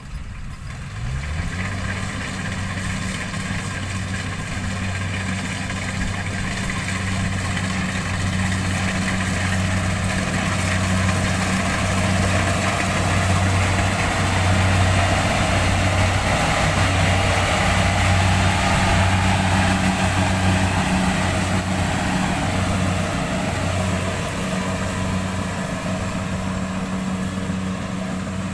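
Rice combine harvester running: a steady low engine drone that rises in pitch and settles about a second in, with a rushing machine noise over it that grows louder toward the middle and eases off near the end.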